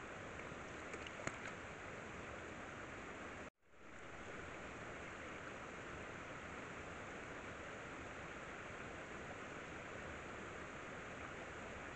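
Steady, even background hiss with a few faint clicks about a second in; the sound cuts out abruptly for a moment a few seconds in, where one trail-camera clip ends and the next begins.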